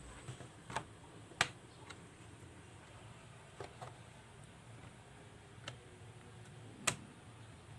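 Scattered sharp plastic clicks and snaps as the top case of an Asus A454Y laptop is pried open and its clips release, about six in all, loudest about a second and a half in and near the end.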